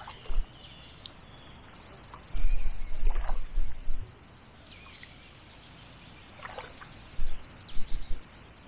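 Wind buffeting the microphone in two loud, low gusts, about two and a half seconds in and again near the end, over the faint sound of a kayak paddling on calm canal water. Small birds call now and then with short, falling chirps.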